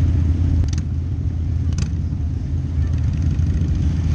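Harley-Davidson V-Rod's V-twin engine with a Vance & Hines exhaust, a steady low rumble at slow riding speed among other motorcycles. Two short sharp ticks come about a second apart early on.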